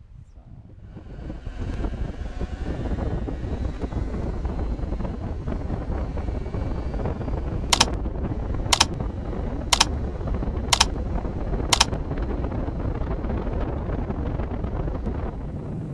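KTM 790 Adventure motorcycle pulling away and riding, its engine rumble and wind noise building over the first couple of seconds and then holding steady. Five sharp ticks, about a second apart, come in the middle.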